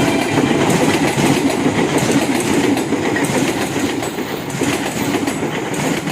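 A train running past, loud and steady, its wheels clattering over the rails.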